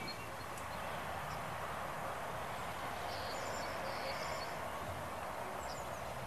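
Outdoor ambience: a steady, even background hiss with a few faint high bird chirps around the middle.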